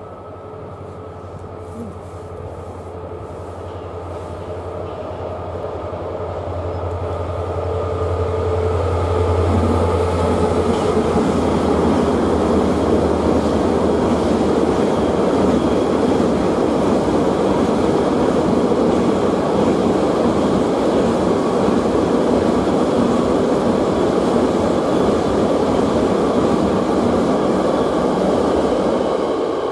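Freight train of tank wagons passing close by. The locomotive's deep steady hum builds over the first eight seconds or so and fades, then the tank wagons roll past with a loud, steady rumble of wheels on rail, dropping off near the end.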